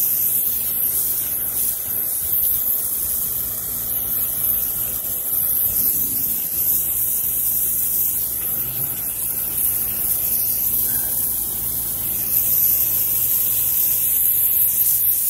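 Pressure washer's M5 twist nozzle shooting a straight high-pressure water jet against a stucco wall to knock off fungus gnat specks: a steady, loud hissing spray with a low steady hum underneath.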